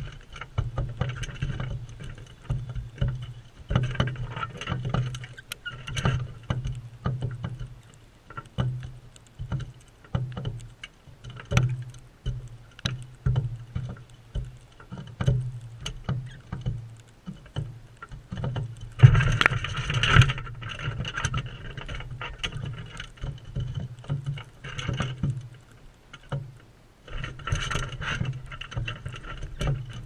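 A flock of galahs feeding at close range: irregular taps, knocks and low thumps, with wing flaps, as the birds jostle around. Bursts of harsh galah screeching come about two-thirds of the way through and again near the end.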